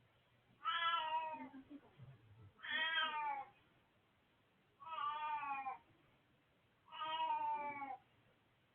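An old cat meowing four times, about two seconds apart. Each meow lasts about a second and falls slightly in pitch.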